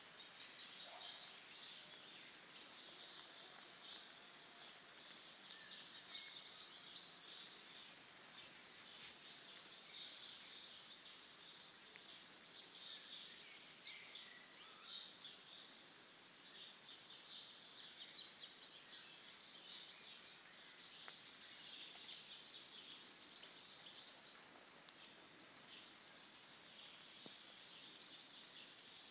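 Faint forest birdsong: small birds chirping and trilling high-pitched in quick runs, over a quiet steady hiss of the woods.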